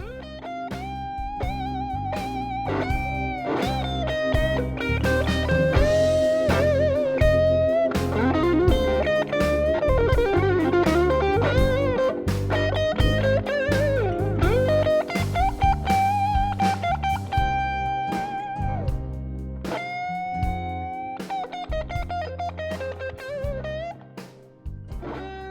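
Hardtail S-Type electric guitar with a Korina body, two single-coil pickups and a bridge humbucker, playing a lead line. It has sustained notes, string bends and wide vibrato.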